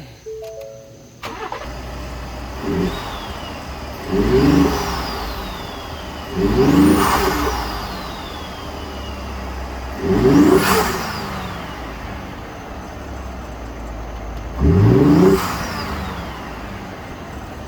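2018 Ford F-150's twin-turbo EcoBoost V6, with a DIY open intake, starting about a second in and then idling between revs: one light blip, then four hard revs. With each rev a high turbo whistle rises and then falls away as the engine drops back to idle.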